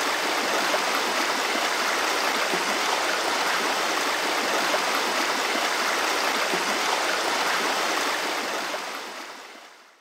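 Steady rush of flowing water, fading out near the end.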